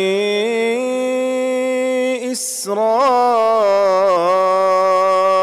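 A man chanting Quranic recitation in Arabic, slow and melodic, drawing out long held notes; one brief hissing consonant breaks the line about halfway through.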